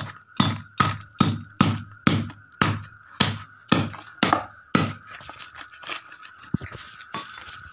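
A heavy curved chopping blade (dao) striking down again and again on something hard wrapped in paper on a concrete floor: about a dozen blows, a little over two a second, stopping about five seconds in.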